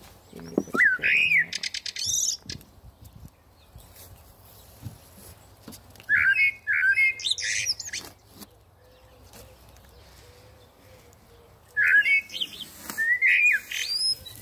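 Bird calls played from a small speaker as a lure: a burst of chirps and whistles that comes three times, about six seconds apart.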